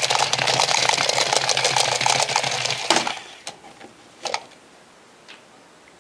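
Walking toy's small electric motor and plastic gears running, a rapid clicking over a steady low hum, cutting off abruptly about halfway through. A short knock follows about a second later.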